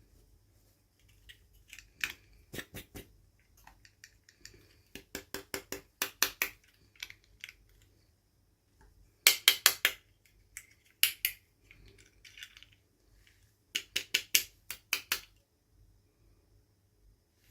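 Hands handling small plastic toy pieces and packaging: groups of quick small clicks and taps, several per group, with short quiet gaps between. The loudest run comes about nine seconds in.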